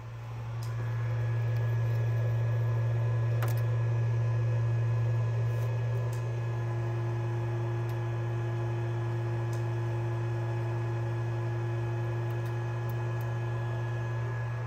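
Creality Ender 3D printer running with a steady low hum while it is still busy with its current step. A second, higher tone joins about six seconds in, with a couple of faint clicks.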